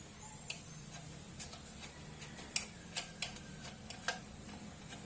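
Light metallic clicks and taps from tools and small parts being handled while a motorcycle horn is fitted, about half a dozen sharp ones at irregular intervals over a faint steady hum.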